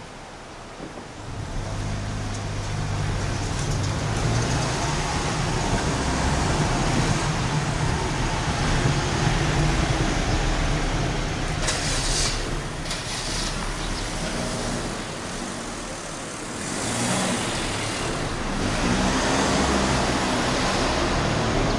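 Road traffic: cars running and passing, a steady low engine hum with tyre and road rush, swelling in the first couple of seconds, with brief louder hissing rushes about halfway through and again later.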